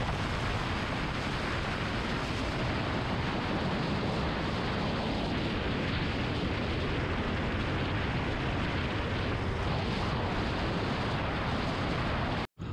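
Steady wind rush buffeting the microphone of a motorcycle travelling fast on an open highway, with the engine and tyre noise under it. The sound drops out abruptly just before the end.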